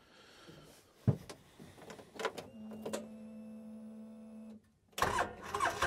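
Key-on of a 2013 Polaris Ranger 800: a few clicks and a thump, then the electric fuel pump whines steadily for about two seconds while priming and stops. Near the end the starter cranks and the twin-cylinder engine starts.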